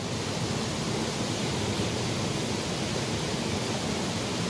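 Shallow stream flowing and rippling steadily, an even rushing hiss.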